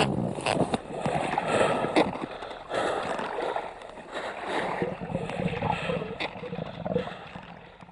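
Water splashing and churning as a person in an immersion survival suit goes over the side of an inflatable boat into icy water, with irregular splashes and knocks that die away near the end.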